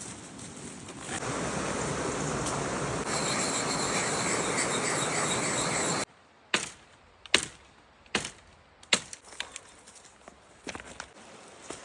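A steady rushing noise, like running water or wind, that cuts off suddenly about halfway through. It is followed by a string of sharp, irregular knocks and snaps.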